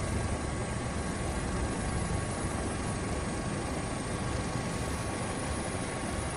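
Helicopter running steadily: a low rotor rumble with a constant high turbine whine.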